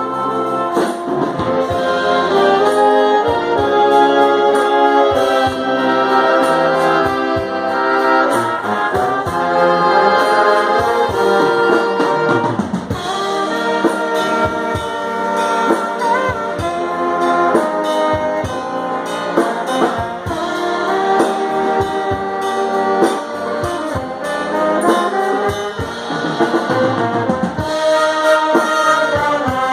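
Live band music in an instrumental passage led by brass instruments playing held melodic notes over steady drum hits.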